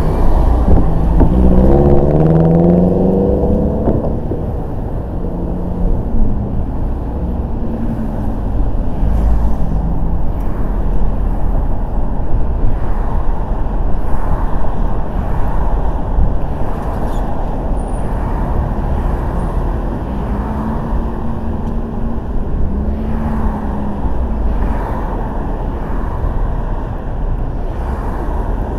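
Car driving on city streets: a steady low road rumble, with an engine rising in pitch as it accelerates over the first few seconds.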